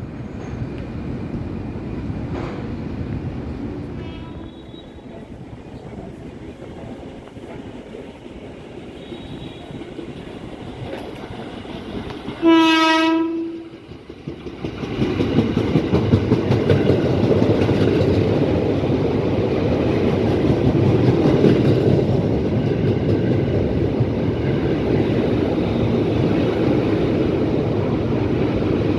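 Electric commuter train (KRL) sounding one horn blast of about a second, about halfway through, then running past with a loud steady rumble and its wheels clacking over the rail joints.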